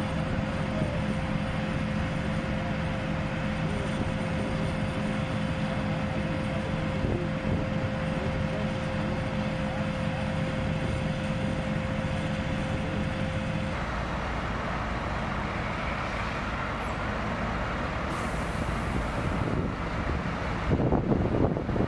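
Fire trucks' diesel engines running steadily at a fire scene, a steady low drone with a held tone over it. About two-thirds through the sound changes to a broader, more even engine noise, and wind buffets the microphone near the end.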